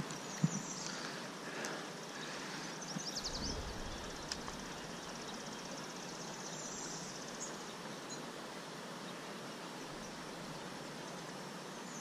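Steady rush of a shallow, rippling stream, with a sharp click about half a second in and a brief low rumble around three seconds in.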